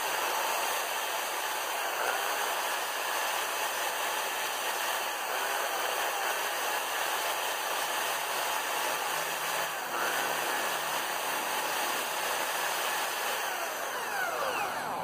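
Corded electric drill running steadily, spinning a motorcycle valve against its seat in the cylinder head to lap it with grinding paste. The drill is pushed back and forth against the seat, and the motor winds down near the end.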